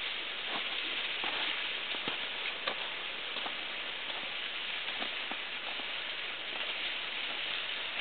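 Steady rushing hiss of water falling behind the ice of a mostly frozen waterfall, with a few faint clicks scattered through it.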